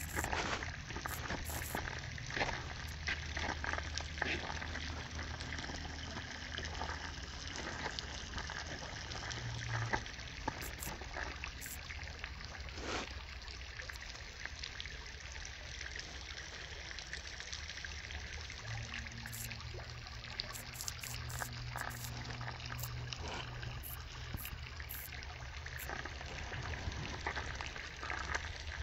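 Water trickling steadily, with irregular small clicks and taps over it and a low steady hum underneath.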